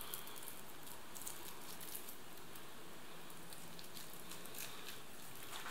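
Faint crinkling and ticking of a small sauce sachet being torn open and squeezed onto a spoon, over a steady low room hiss.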